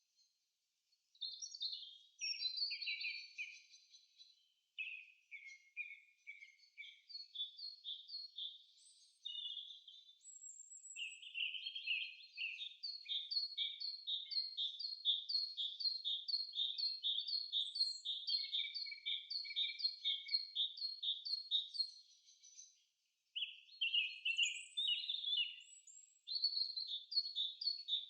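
Songbirds singing: phrases of quick, high chirping notes, with a long stretch of evenly repeated notes at about two a second through the middle, broken by short pauses.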